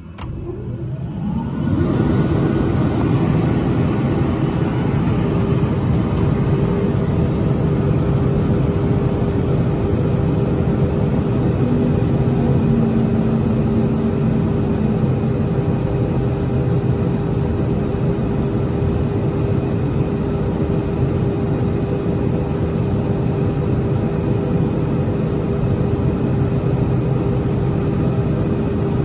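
Boge S 20-2 rotary screw air compressor with its 15 kW electric motor starting up, coming up to full running over about two seconds. It then runs steadily with an even drone and a constant tone.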